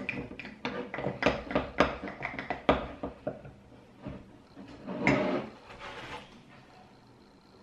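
Metal spoon clinking rapidly against the inside of a glass jar as thick sourdough starter is stirred, about four or five clinks a second, stopping after about three seconds. About five seconds in, a brief knock and rustle as the jar is put down and a plastic gallon water jug is picked up.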